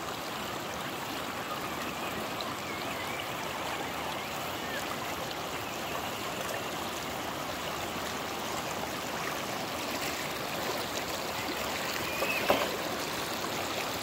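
Shallow creek water running over rocks, a steady rush and trickle. A brief high chirp cuts in near the end.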